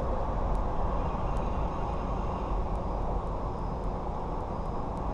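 Steady low rumble of outdoor background noise, with faint light ticks repeating a few times a second from about two seconds in.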